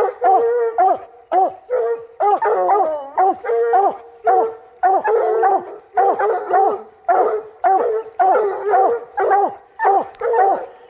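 Two or more coonhounds barking hard and without pause, about two barks a second, their voices overlapping at different pitches, with a longer wavering bawl about two seconds in.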